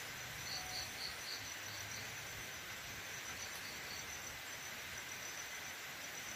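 Faint forest insect chorus: a thin, steady high buzz, with short runs of chirps at about four a second, over a low hiss.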